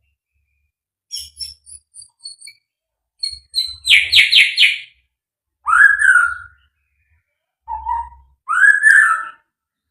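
White-rumped shama (murai batu) singing in separate phrases with short pauses. It gives thin high chips, then a quick run of four loud notes, then rising slurred whistles, twice.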